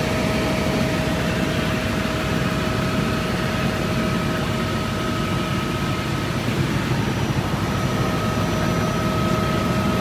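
Helicopter in flight heard from inside the cabin: the engine and rotors running as a loud, steady drone, with a thin steady whine above it.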